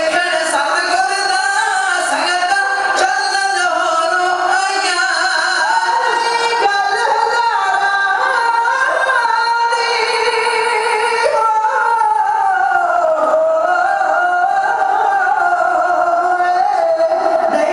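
A group of Sikh men singing a devotional song live into microphones, in long, ornamented held notes that bend and waver in pitch.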